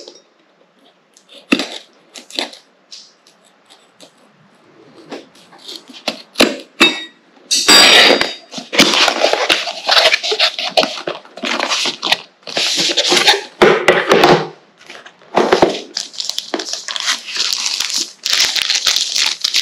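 A cardboard box being opened by hand: first a few light taps and scrapes, then from about eight seconds in a long, louder run of cardboard scraping, sliding and tearing as the flaps are folded back and the inner tray is lifted out.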